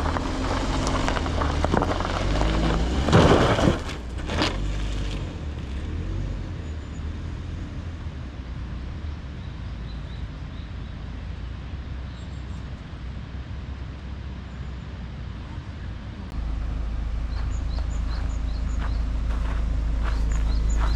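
Car engine running as the car creeps over deep, soft gravel, with a loud scrape-like noise about three seconds in. About three-quarters through, the low engine rumble steps up and stays louder as the car bogs down. Birds chirp near the end.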